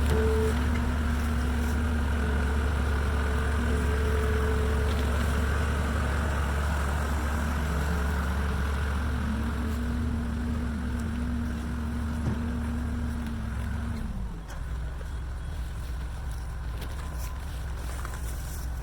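Skid steer loader's engine running under load, its pitch wavering, then dropping as it throttles down about fourteen seconds in.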